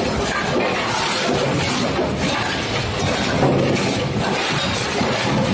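Brunswick bowling pinsetter machinery running, with a continuous dense clatter of bowling pins knocking and clinking against each other and the machine.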